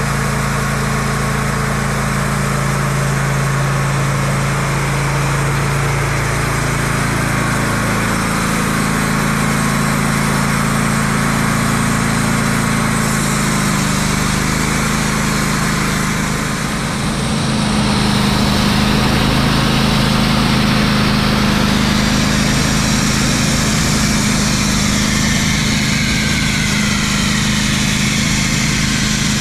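Wood-Mizer portable band sawmill's engine running steadily, its pitch stepping a few times. About 17 seconds in it dips briefly, then runs louder.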